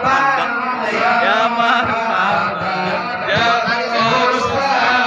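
A group of men chanting Islamic devotional verses (shalawat) together in a steady, continuous flow of many voices.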